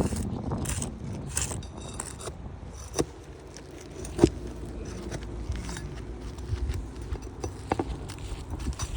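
Scraping and rustling handling noises with two sharp knocks, about three and four seconds in, the second the louder.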